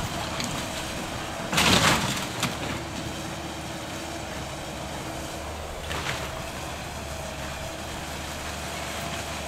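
Link-Belt 160 tracked excavator running steadily with a steady whine, as its bucket tears into the house's timber frame. The crash of breaking wood and falling debris is loudest about one and a half to two seconds in, with a smaller crunch about six seconds in.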